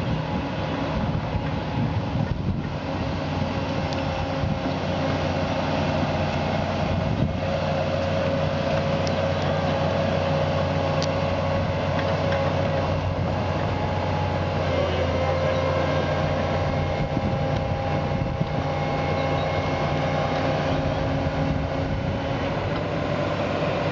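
Tracked excavator's diesel engine running steadily under load as the machine lifts and swings a heavy steel lock gate on chains, with a steady whine over the engine note.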